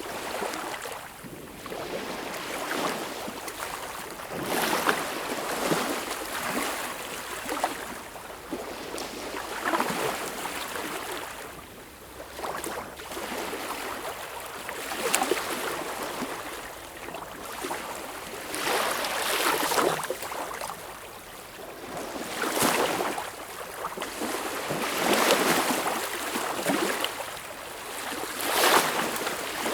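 Sea waves washing in, swelling and falling back in uneven surges every few seconds.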